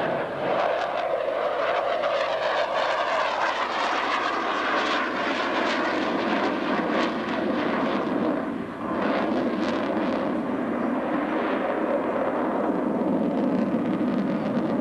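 F-14 Tomcat fighter's twin jet engines heard from the ground as the jet manoeuvres overhead: a continuous loud jet roar with a crackling edge, dipping briefly about two-thirds of the way through.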